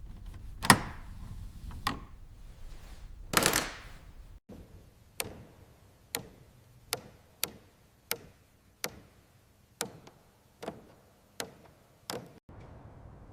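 A loud sharp knock, then a second one and a brief rushing noise. These are followed by a run of about ten sharp taps, roughly one a second, of hand tool work in a workshop.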